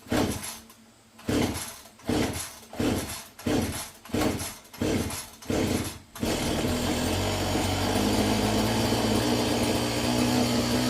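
A run of even rhythmic strokes, about three every two seconds, stops about six seconds in, when a small motor or power tool starts and runs steadily.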